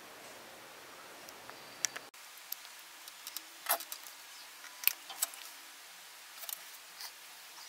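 A faint steady hiss with a scattered series of short, light clicks and taps. The strongest tap comes about five seconds in. The hiss drops abruptly about two seconds in.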